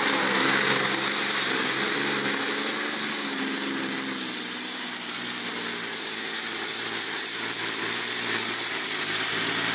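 Volvo FH16 pulling truck's diesel engine running hard under full load as it drags a weight-transfer sled, a steady deep drone that sags a little midway and climbs again near the end.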